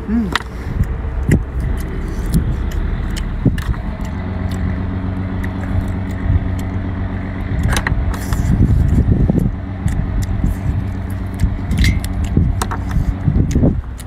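A person eating seafood by hand, with chewing, slurping and short clicks of shells, over a steady low rumble.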